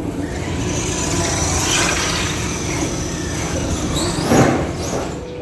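Radio-controlled monster trucks racing: their motors whine, rising and falling in pitch with the throttle, with a louder burst of noise about four seconds in.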